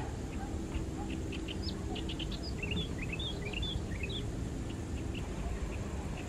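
Small birds chirping in quick runs of short, rising and falling notes, thickest in the middle, over a steady low rumble.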